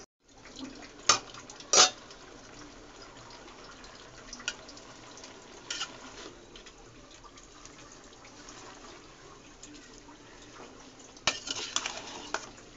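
A metal spatula clinks and scrapes against a metal cooking pot while chopped pumpkin greens are stirred. A few sharp knocks come early and in the middle, with a cluster near the end, over a faint steady sizzle from the pot.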